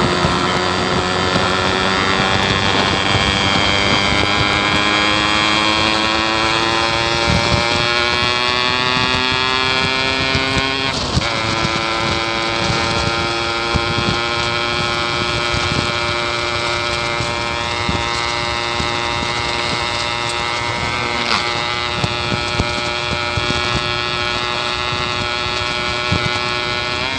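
Yamaha RX King's 135 cc single-cylinder two-stroke engine running under way, its pitch slowly rising as the bike gathers speed, a brief dip about eleven seconds in, then holding steady. The owner calls this bike badly down on power.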